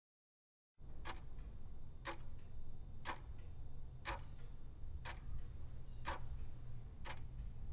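Clock-tick sound effect counting down the seconds of a quiz timer: one tick a second, starting about a second in, over a low steady hum.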